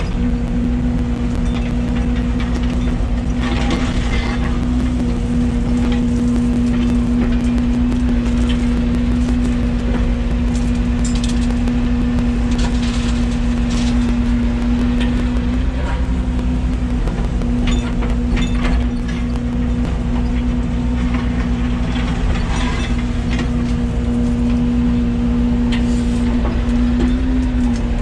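Yanmar ViO80 excavator's diesel engine running steadily with a constant hum, easing briefly a couple of times as the load changes, while the bucket scrapes and clicks through dirt and gravel.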